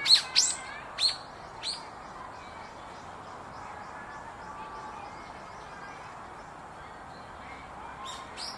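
Wild birds calling: four sharp, high notes that fall in pitch in the first two seconds, faint chirps through the middle, and a few more sharp notes near the end.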